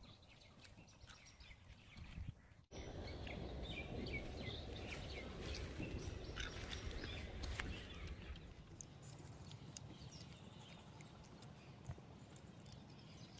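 Faint outdoor background noise with scattered short chirps and clicks. The sound changes abruptly about three seconds in, to a steadier, louder noise.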